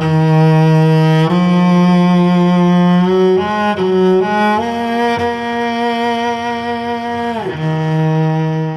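Solo cello bowed in long sustained notes, with a quicker run of shorter notes in the middle and a slide down in pitch near the end, recorded through a Warm Audio WA-19 dynamic microphone.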